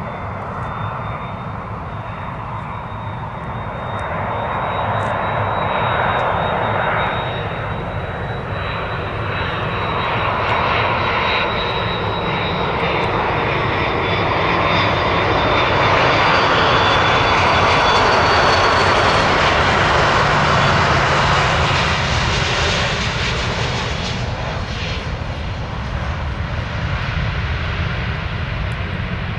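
Delta Air Lines Airbus A330 jet on final approach to land. A steady high engine whine sits over a rushing engine noise that grows as the plane comes near, is loudest a little past the middle, then eases as it flies down to the runway.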